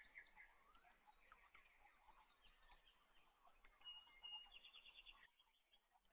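Faint bird chirping, with a quick trill of evenly repeated notes about four and a half seconds in.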